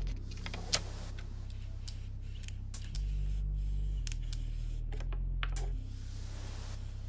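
Soft background music with low bass notes that change every second or so, over light clicks and taps as a clear plastic roller is worked over the adhesive protective film on a table tennis bat. A short hiss of rubbing comes near the end.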